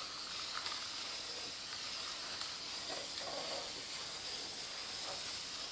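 Aerosol can of high-tack gasket sealant spraying in one steady hiss.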